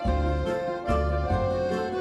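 Background instrumental music: steady pitched notes over a bass line that changes every half second or so.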